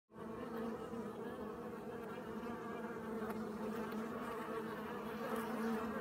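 Steady, dense buzzing of many honeybees from a newly settled swarm colony at a hive; the hum cuts off suddenly at the end.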